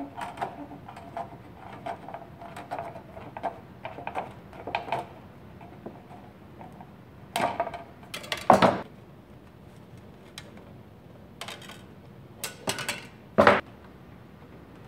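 Tin snips cutting thin white aluminum fascia sheet: a quick run of short clicking snips as the jaws close along the cut line, then a few louder knocks a few seconds in and again near the end as the cut-off pieces and tools are handled on the bench.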